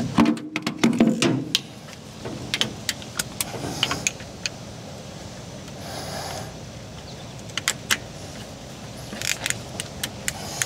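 Metal hand tools clinking, knocking and scraping against engine parts while a part is pried loose from a rubber grommet: a run of sharp clicks and knocks, busiest in the first second and a half and again near the end.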